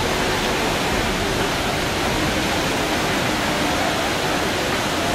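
Whitewater rapids of the Düden river rushing over rocks: a loud, steady, unbroken rush of water.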